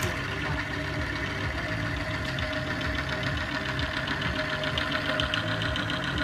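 Motor-driven oil wear test rig running steadily without load, its shaft turning in fresh oil, with a constant whine over the mechanical hum.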